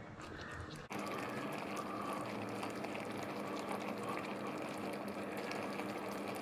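A spatula stirs briefly in a fry pan, then a thick tomato and pepper sauce simmers, bubbling and popping steadily as it reduces. A steady low hum runs underneath.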